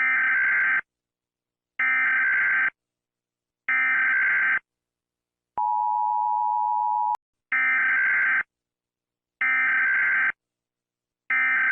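Emergency Alert System tones: three short bursts of SAME digital header data, then a short steady two-tone attention signal, then three more data bursts.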